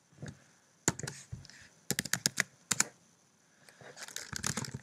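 Keystrokes on a computer keyboard, typing commands in short quick bursts of clicks.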